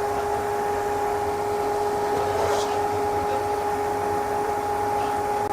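Steady fan or motor hum with a constant whine over even noise, plus a faint light clink about two and a half seconds in.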